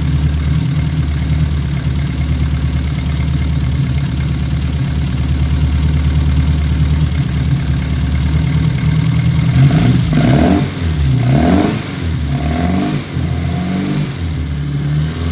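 Classic Austin Mini Cooper's four-cylinder engine idling steadily, then revved up and back down several times in quick succession about ten seconds in before settling back to idle.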